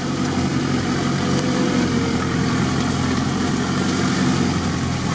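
Off-road 4x4's engine running steadily at low revs as it creeps through tall reeds, with reed stalks brushing and scraping against the body.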